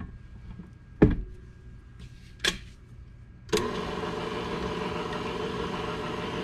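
A couple of sharp knocks and clicks. About three and a half seconds in, an electric stand mixer switches on and runs with a steady motor hum, creaming butter and powdered sugar.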